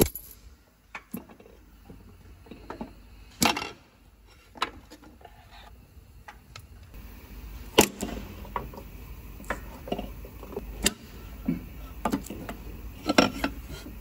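Scattered metallic clinks and knocks of hand tools and engine parts being handled during an engine teardown, with a few louder knocks, the sharpest about 8 seconds in.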